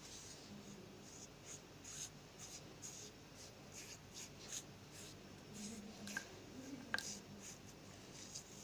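Slime being worked by hand or in a bowl: a run of faint, quick crackling and squishing sounds several times a second, with one sharper click about seven seconds in.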